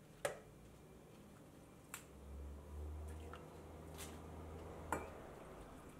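Coffee being poured from a glass server into ceramic cups, a soft liquid pour with a few light clicks and taps of glass and crockery.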